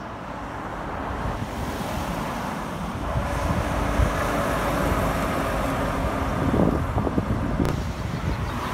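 Heavy rigid truck driving past: engine and tyre noise build as it approaches, are loudest from about three seconds in while it passes, then ease away. Wind buffets the microphone.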